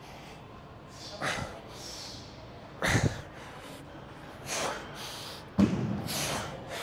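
A man's forceful breaths, exhaling hard through nose and mouth with each repetition of a one-arm dumbbell shoulder rotation: four sharp breaths about one every second and a half, the last one longer.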